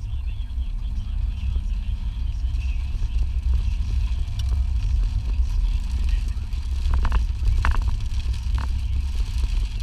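Steady low rumble of a car driving, heard from inside the cabin, with a few short higher-pitched sounds near the end.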